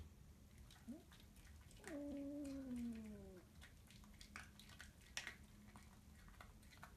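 A cat's meow: a short rising chirp about a second in, then a longer drawn-out meow that slides down in pitch.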